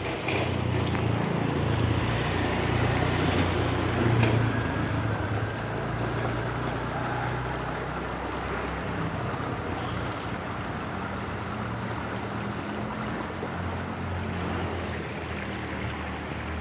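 Heavy rain falling with a steady hiss, over a steady low rumble, with a few faint clicks, the loudest about four seconds in.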